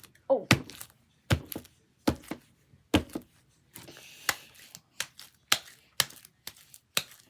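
Sticky slime on bare hands being worked and pulled apart, making a quick series of sharp sticky clicks and pops, about two a second.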